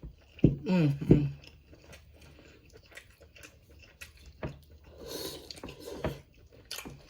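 Close-up chewing and mouth smacking of seafood-boil crab meat, with a few sharp clicks and a short hummed vocal sound about a second in.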